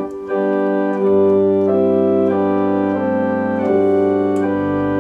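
Viscount Sonus 60 physically modelled digital organ playing sustained chords on the Great diapasons with the 4-foot principal drawn. Pedal bass notes come in about a second in and step lower near the end.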